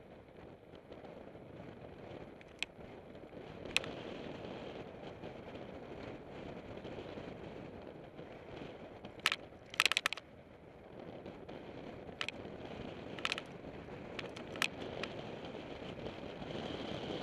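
Mountain bikes rolling on a dirt singletrack: a steady rushing of tyre and wind noise, broken by sharp rattling clicks over bumps, the loudest cluster about ten seconds in.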